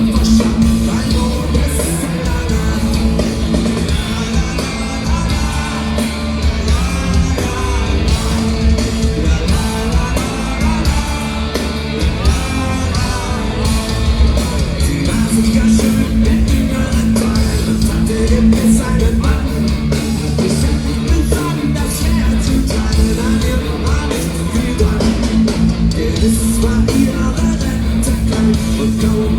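Punk rock band playing live at full volume: distorted electric guitars, bass and drums, with shouted singing over them.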